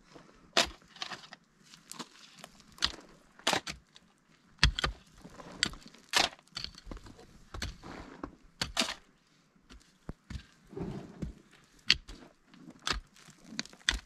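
Pick and shovel digging into dry, stony ground: sharp strikes and scrapes at uneven intervals, roughly one a second.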